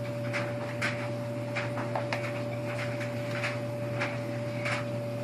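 Paper sticker sheet crackling and rustling in short, irregular crackles, several a second, as stickers are picked and peeled off it by hand. Underneath is a steady low hum and a thin steady tone.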